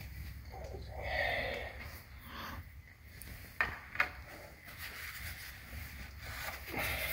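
Hand tools and small parts being handled on a cluttered workshop bench: rustling and shuffling, with two sharp clicks about three and a half and four seconds in, over a steady low hum.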